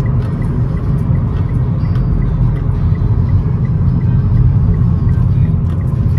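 Steady low rumble of a moving vehicle, with faint music and a light tick about four times a second over it.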